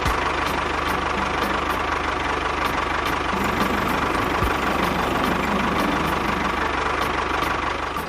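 A small engine running steadily with a fast, even pulse, cutting off suddenly at the end.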